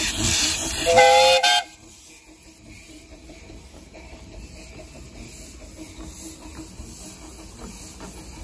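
Miniature steam locomotive Mad Bess hissing loudly as steam jets from its cylinders, with one short whistle blast about a second in. Less than a second later the sound drops suddenly to a much quieter, steady background.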